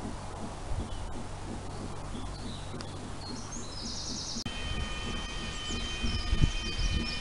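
Outdoor ambience with wind rumble on the microphone and birds chirping; after a cut about four seconds in, a level crossing's electronic warning alarm sounds as a steady cluster of high tones, with gusts of wind rumble.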